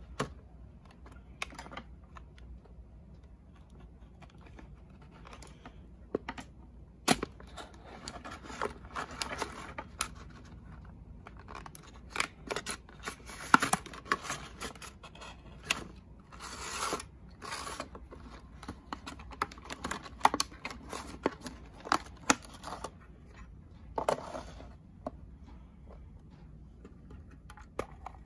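Hard clear plastic display case of a diecast model truck being handled and opened: a string of irregular clicks, taps and plastic rustling, busiest in the middle stretch.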